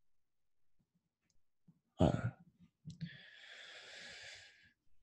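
A man's voice, not speaking: a sharp breath in about two seconds in, then a long sighing breath out lasting about a second and a half.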